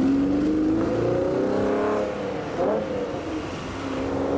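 Flatbed car-carrier truck's engine pulling away past the microphone, its note rising steadily. About two seconds in it drops off and fades as the truck moves on.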